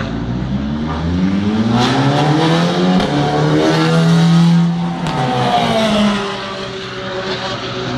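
Race car engine accelerating past at full throttle: the note climbs in pitch, is loudest a little past halfway, then drops in pitch and fades as the car moves away.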